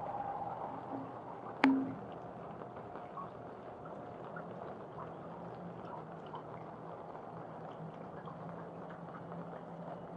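Rain pattering and dripping, a steady wash with scattered small drips. One sharp knock comes just under two seconds in, and a faint low hum runs under the second half.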